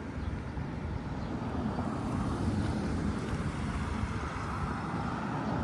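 Road traffic: a steady rumble of passing vehicles, growing somewhat louder toward the end.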